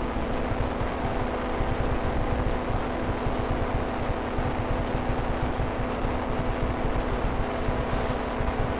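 Weight-shift microlight trike in cruise flight: its engine and propeller drone steadily, with wind rushing over the microphone.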